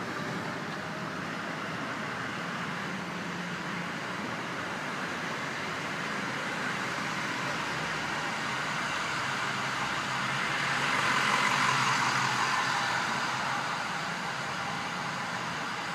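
Steady street traffic noise that swells to its loudest about eleven to twelve seconds in, then eases back.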